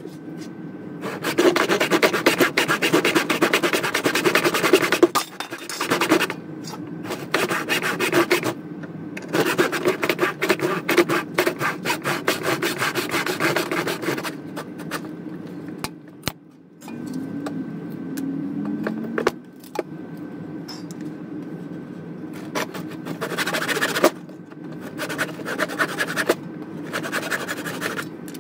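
Handsaw cutting across the end of a wooden hammer handle clamped in a vise, in runs of rapid back-and-forth strokes with short pauses between them.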